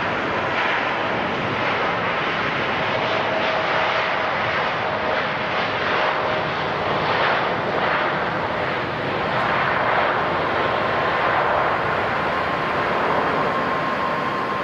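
Jet airliner engines running steadily: an even, loud rush of engine noise with faint whining tones on top, one midway and a higher one from about ten seconds in.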